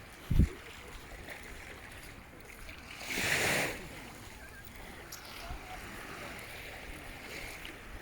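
Sea waves washing onto the shore with steady wind noise; one wash swells louder for under a second about three seconds in. A sharp low thump on the microphone near the start.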